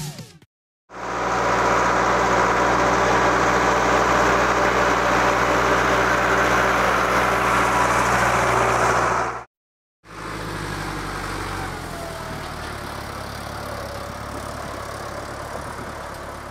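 Case IH 845 XL tractor's diesel engine running steadily, loud as the tractor passes close over the microphone. After a brief gap it runs on more quietly as the tractor drives along the road with the seed drill raised.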